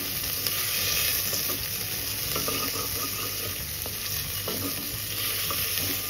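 Diced potatoes, onions and curry leaves sizzling in hot oil in a stainless steel pan while a spatula stirs and scrapes through them, with scattered light clicks of the spatula against the pan.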